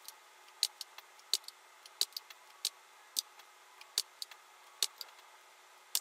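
Computer keyboard keys and mouse buttons clicking: single sharp clicks at an uneven pace, about two a second.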